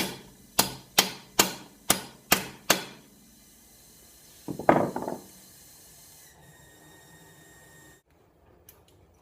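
Hammer blows struck in a steady series of sharp taps, about two a second, while working at stuck parts on a motorcycle engine's top end. They stop about three seconds in. Near the middle a brief clatter follows, the loudest sound.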